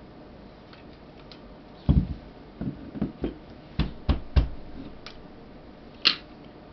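A small aluminium table tripod's legs being swung out and handled, giving a quick run of about eight clicks and knocks, then one sharper click near the end.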